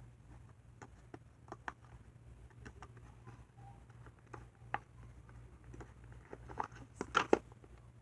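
Small toys being handled: scattered soft clicks and crinkles, with a quick run of louder crackles about seven seconds in.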